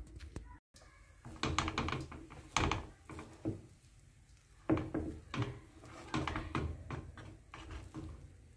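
Wooden spoon stirring cooked rice and peas in a pan, with irregular clusters of scraping and knocking against the pan starting about a second in.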